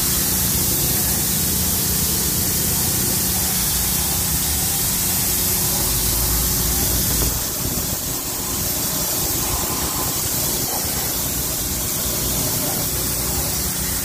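High-pressure water jets from a four-nozzle undercarriage washer bar hitting the underside of a car, a steady hiss of spray. The APW 3500 PRO's 223 cc petrol engine runs steadily beneath it.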